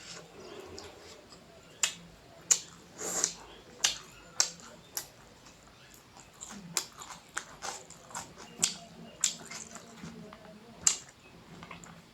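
Close-miked mouth sounds of eating rice, egg and noodles: wet chewing and smacking, with a dozen or so sharp clicks at irregular intervals.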